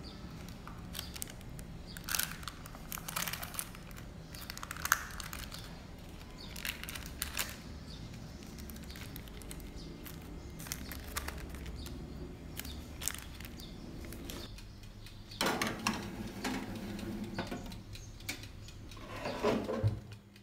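Baking paper crinkling and rustling as hands smooth and press it over dough in a metal baking pan, with scattered small clicks and crackles over a low steady hum. There are louder bursts of handling noise about three quarters of the way through and again near the end.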